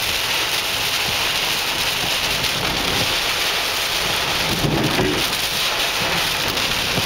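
Torrential rain pounding steadily on a car, heard from inside the cabin.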